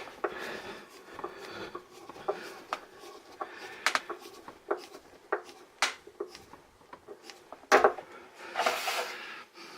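Light clicks and taps of small tools and metal parts being handled on a workbench, with a louder knock near the end and a short rubbing scrape after it.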